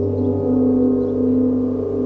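Meditation background music of several sustained, ringing drone tones held together, with a slow pulsing beat in them.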